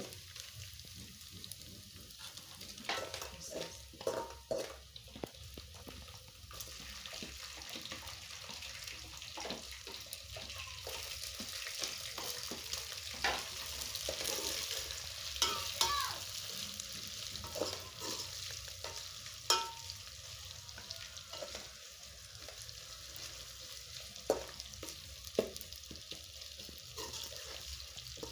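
Small dried sardines frying in an aluminium pot with a steady sizzle that swells louder midway, while a spoon stirs them, scraping and knocking against the pot at scattered moments.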